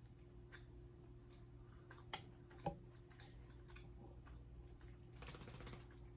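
Quiet sounds of someone tasting beef jerky: a few faint clicks, two sharper clicks about two and two and a half seconds in, and a short rustle near the end, over a steady low hum.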